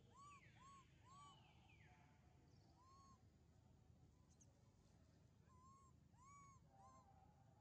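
Faint animal calls, each a short call that rises and falls in pitch. There is a quick run of four at the start, a single call about three seconds in, and three more near the end.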